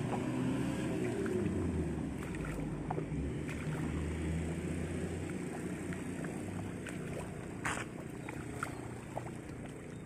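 Footsteps sloshing through the shallow water and mud of a flooded rice paddy, with a low rumble of wind on the microphone and scattered small clicks. There is one sharper knock near the end.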